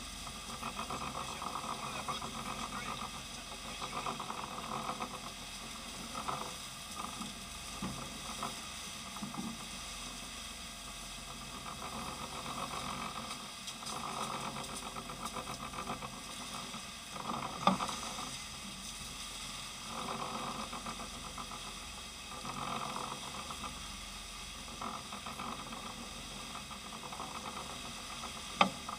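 Wake water churning and hissing behind a sport-fishing boat's stern as it runs under power, over a steady engine drone. A sharp knock comes a little past halfway and another just before the end.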